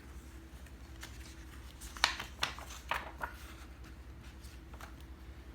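A few short rustles and taps of handling noise, bunched about two to three seconds in, over a faint steady hum.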